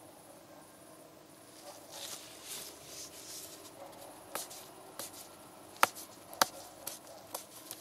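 Gloved hands handling a plastic engine-oil bottle: soft rustling of glove on plastic, then about six sharp clicks as fingers press and tap the bottle, two of them loudest just past the middle.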